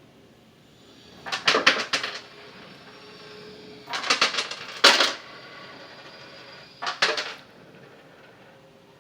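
Metal coins clattering and clinking in three quick bursts, as coins spill down in a coin-cascade machine.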